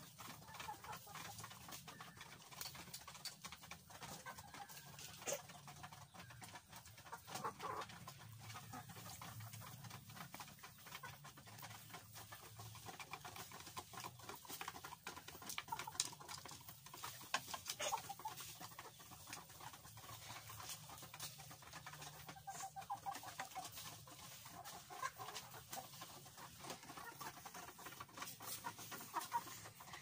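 Flock of hens clucking softly while they feed, with many short clicks and taps scattered through.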